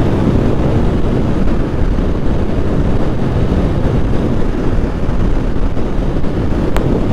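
Wind rushing over the microphone of a Honda Unicorn 160 motorcycle being ridden, a steady loud rumble with the bike's engine and road noise underneath.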